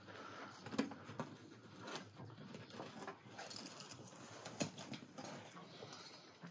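Irregular light knocks, taps and scrapes as a metal hook pries flatbreads off the inside walls of a clay tandoor and the breads are handled. The sharpest tap comes a little under a second in, another at about four and a half seconds.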